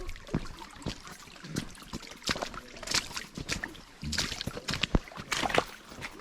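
Hikers' footsteps on a rough, icy trail: irregular crunching steps with scuffing between them.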